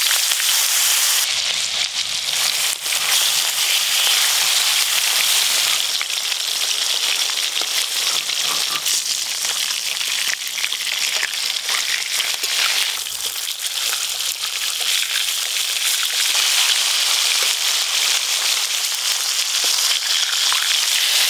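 Silver carp steaks sizzling steadily as they fry in hot mustard oil in a metal karai (wok).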